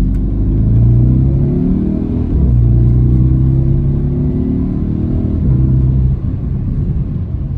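Porsche Cayenne Turbo 958's twin-turbo V8, fitted with a SOUL mid-pipe exhaust that deletes the secondary cats, heard from inside the cabin under hard acceleration. The engine note rises, drops at upshifts about two and five and a half seconds in, then eases off near the end.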